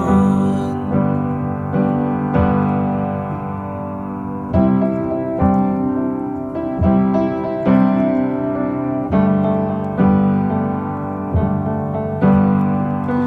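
Music: an instrumental passage of a song, a piano playing chords struck about once a second, with no singing.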